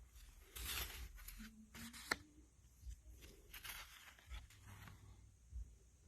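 Faint rustling and scraping of paper lottery scratch-off tickets being handled, with a single sharp click about two seconds in.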